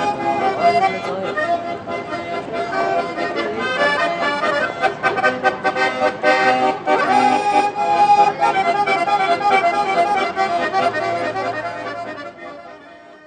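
Piano accordion playing a lively tune, fading out near the end.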